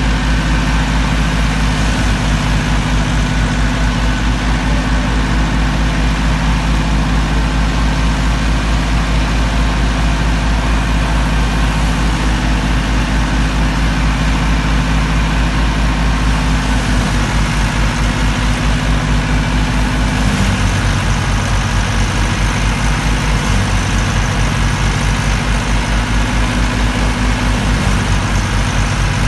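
Massey Ferguson 385 tractor's diesel engine running steadily under load, powering a wheat thresher through its PTO, with the thresher's drum and fan running and wheat going through it. The engine note shifts slightly a little over halfway through.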